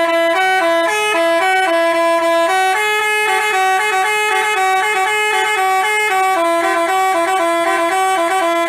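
Basuri-style telolet horn, a multi-tone horn, playing a running tune of short steady notes that step between a few pitches several times a second.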